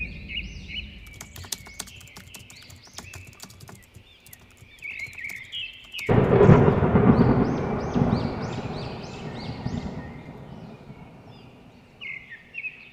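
Birds chirping in short repeated calls with scattered sharp clicks. About six seconds in, a rumble of thunder starts suddenly and slowly fades while the chirping goes on.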